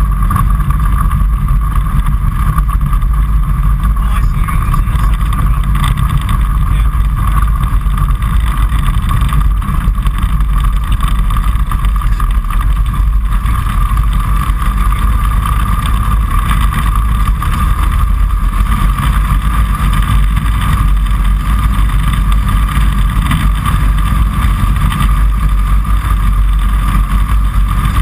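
Kitfox Series 5 light aircraft's engine and propeller running steadily at a constant pitch, heard loud from inside the cockpit.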